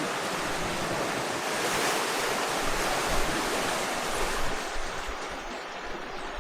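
Wind and sea noise aboard a sailing yacht underway: water rushing along the hull with wind on the microphone, a steady hiss that eases somewhat about four and a half seconds in.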